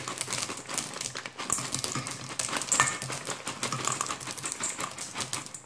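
M&M's candies pouring from their plastic packet into a metal mixing bowl of cookie dough: many small, quick clicks as the hard-shelled candies land on each other and the bowl, with the packet crinkling.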